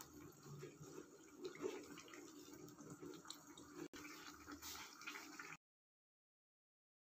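Faint wet bubbling and small pops of a thick shrimp caldereta sauce simmering in a pan. It cuts to silence about five and a half seconds in.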